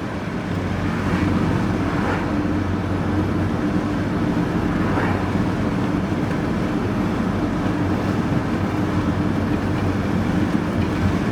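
Van engine and tyre noise heard from inside the cab while driving: a steady, even drone.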